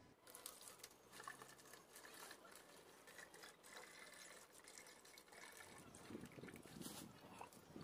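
Faint trickling of cow-dung-and-water slurry poured from a cup through a funnel into a plastic bottle, filling a homemade biogas digester.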